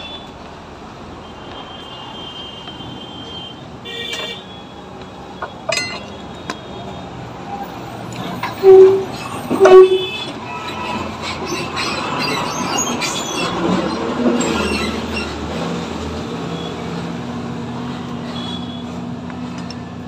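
Road traffic noise with two short, loud vehicle horn toots about nine and ten seconds in, a few sharp clicks, and a motor vehicle engine running steadily in the later part.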